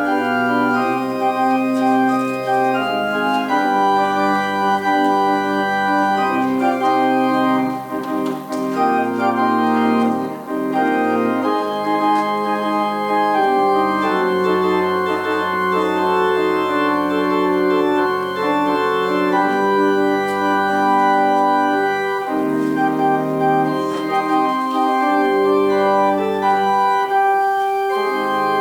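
Organ music: slow, sustained chords held and changed every second or two.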